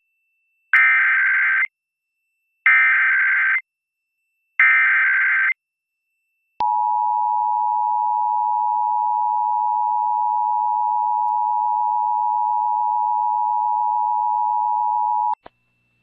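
Emergency Alert System header: three data bursts of about a second each, then the two-tone EAS attention signal held steady for about nine seconds. Together they announce an incoming alert, here a statewide required monthly test.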